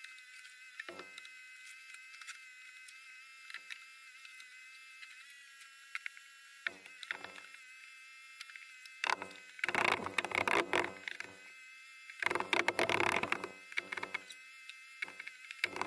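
Knocks, bumps and scraping from a new plywood floor panel being fitted into place, scattered at first and then in two louder clusters in the second half, over a steady faint high whine.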